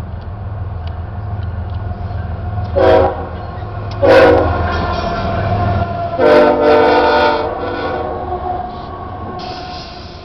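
CSX freight diesel locomotive air horn sounding three blasts as the lead units pass close by: a short one about three seconds in, a loud longer one about a second later, and another long one about six seconds in that fades out. Under the first half runs the rumble of the locomotives' diesel engines, and the rolling noise of the train grows near the end.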